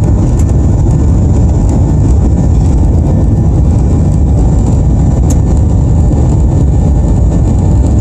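Airliner cabin noise during takeoff: the jet engines and rushing air make a loud, steady, deep rumble.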